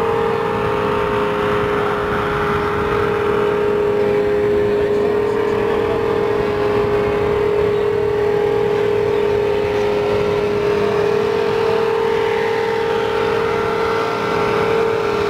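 Motorboat engine running at a steady speed: a constant, even drone that holds one pitch throughout.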